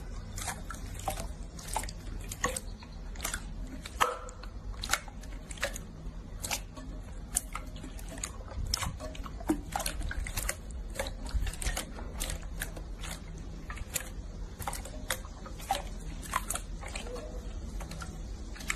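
Clear glittery slime being pressed and poked by hand, giving irregular wet clicks and pops, several a second.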